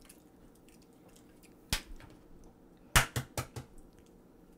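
An egg being knocked against a hard edge to crack its shell: a single sharp knock, then about a second later four quick knocks in a row.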